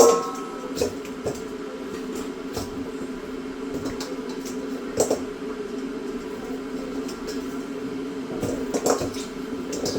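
Metal pot clanking once at the start with a brief ring, then wet squishing and a few light clinks as raw goat meat is handled in it, over a steady low hum.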